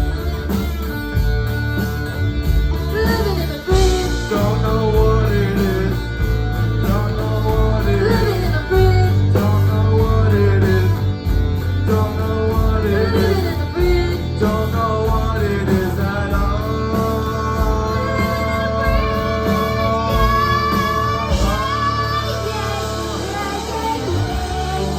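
Rock band playing: electric guitar lines bending in pitch over a steady bass and drum beat, with a singing voice.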